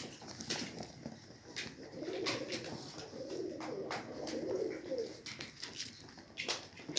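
Domestic pigeon cooing: a low warbling coo lasting about three seconds in the middle, with scattered short clicks and taps around it.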